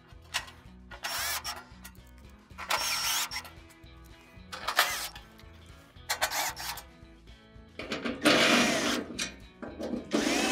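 Cordless drill/driver running in about six short bursts, driving the screws that hold the gas range's burner bases to the cooktop, its motor whine rising and falling with each screw.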